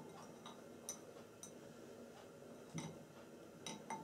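Faint, irregularly spaced light clicks of paintbrush handles knocking against a glass water bowl as a fine brush is picked out of it.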